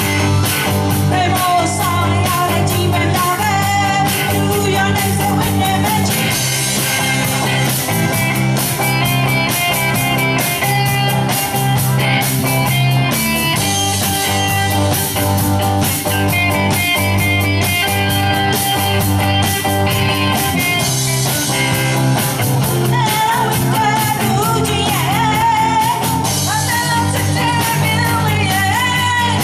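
Live band playing a song with female singers at the microphones, backed by guitar and a drum kit.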